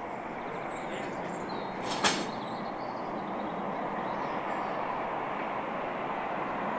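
Train running close by: a steady rumble that grows slowly louder, with a single sharp clank about two seconds in.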